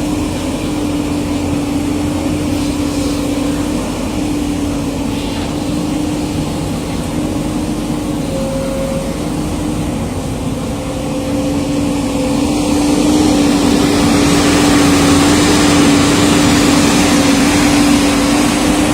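JCB JS205 excavator's diesel engine running steadily with a constant whine, growing louder about two-thirds of the way through.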